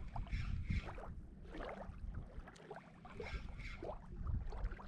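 Wind rumbling on the microphone, with small wind-driven waves lapping and splashing against a rocky shoreline.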